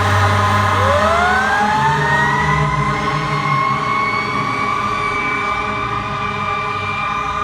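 A fire truck's Federal Q2B mechanical siren winding up: its wail rises steeply in pitch from about a second in and levels off into a steady high wail. A low drone stops about a second in.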